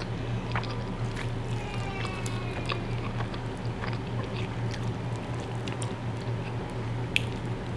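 Close-miked chewing, with small scattered mouth and utensil clicks over a steady low hum. A sharper click comes near the end.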